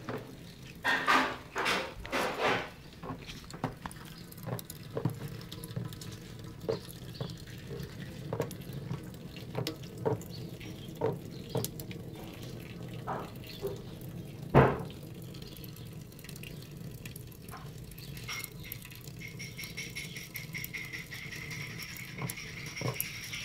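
Weaned kitten lapping water: short, wet laps and clicks at uneven spacing, a few louder ones in the first seconds and one sharper knock about halfway through.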